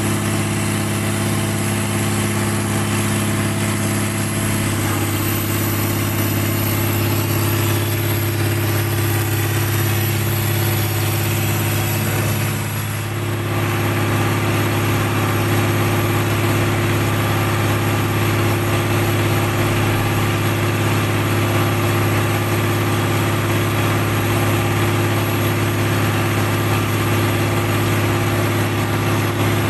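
Large diesel engine idling with a steady low hum, briefly dipping about halfway before running on unchanged.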